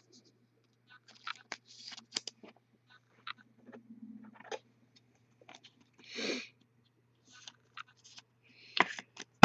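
Trading cards and a clear plastic card holder being handled: scattered light clicks and scrapes, a longer slide about six seconds in as a card goes into the holder, and a sharp plastic click near the end.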